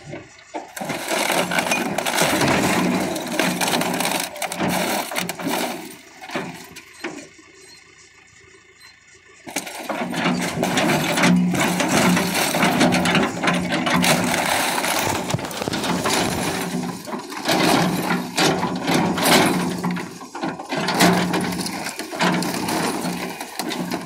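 John Deere 410 backhoe's diesel engine running under load while its bucket crushes a rear projection TV, with repeated cracking, scraping and crashing of plastic and sheet metal. There is a quieter stretch of about three seconds roughly a third of the way in.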